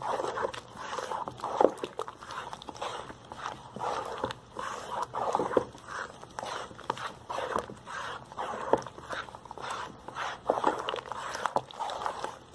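Wooden spoon stirring a thick soapy mixture in a basin, with repeated irregular scraping strokes roughly once a second, as sugar is stirred in to dissolve.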